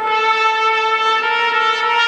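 Trumpets playing slow, long-held notes, with the pitch stepping to a new note near the end.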